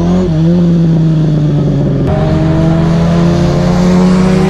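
Kawasaki Zephyr 400χ inline-four motorcycle engine running at steady cruising revs, its pitch holding nearly level. The sound shifts abruptly about two seconds in.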